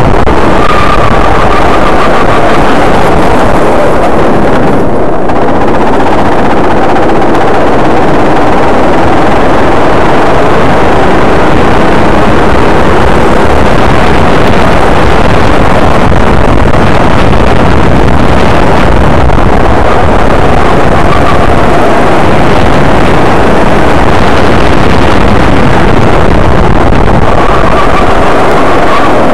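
Go-kart engine running hard, heard from an onboard camera on the kart, mixed with wind buffeting. The recording is so loud it stays pinned near full scale and sounds distorted.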